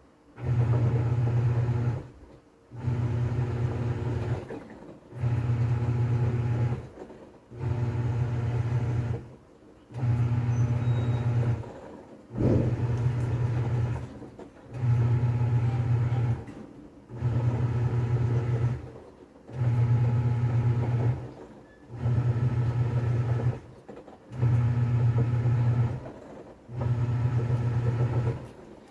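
TCL 7.5 kg top-load washing machine agitating: its motor drives the pulsator in a low hum that runs for about two seconds, stops for about half a second, and repeats over and over, the back-and-forth stroke of the wash cycle.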